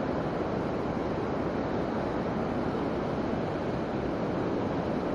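Steady rushing of a fast-flowing hill stream.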